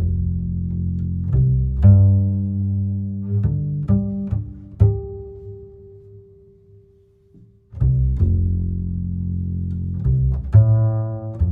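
Soothing background music of low, deep notes struck in a slow pattern. Around five seconds in a single higher note is held, and the music fades almost to nothing about seven seconds in before starting again.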